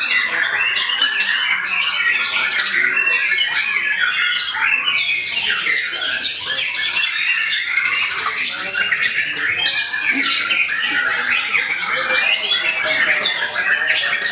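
Many caged songbirds singing at once at a contest, a dense, unbroken chorus of chirps, trills and whistles at a steady level.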